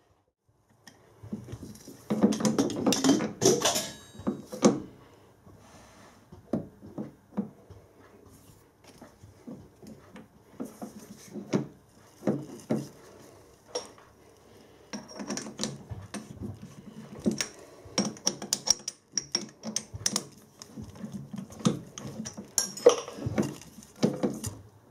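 Metal clinks, knocks and scrapes of hands handling a steel workpiece and the chuck jaws while setting the work up in a lathe's four-jaw chuck. The sounds come as scattered knocks, with a louder clattering stretch a couple of seconds in.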